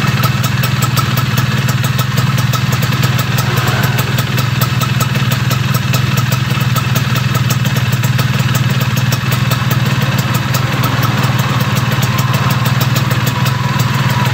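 Yamaha F1ZR's 110 cc two-stroke single-cylinder engine idling steadily, with a fast, even rhythm of firing pulses.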